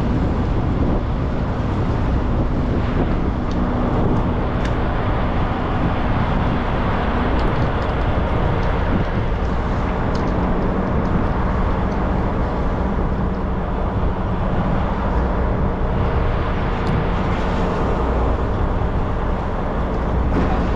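Steady engine hum of a sportfishing boat over a constant rush of noise. The hum drops slightly in pitch about seven seconds in.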